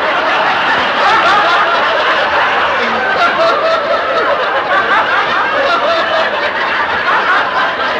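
Studio audience laughing loudly and at length, many voices together, interrupting a comedy line on a live radio broadcast.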